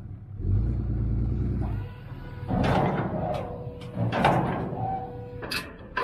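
A load of dirt sliding out of a raised dump trailer as the truck pulls it forward: a low rumble about half a second in, then two bursts of rushing, scraping noise, with a faint steady whine under them.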